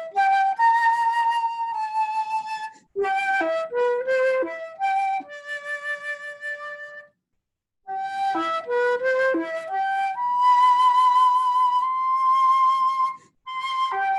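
Slow solo flute melody: phrases of short stepping notes that settle into long held notes, one of them with a gentle vibrato, with a brief pause about halfway through.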